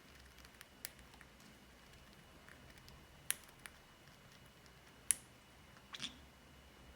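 Scattered sharp clicks and taps, a second or two apart, from a green-cheeked conure working at a foraging toy with its beak to get a snack out; the loudest click comes about five seconds in.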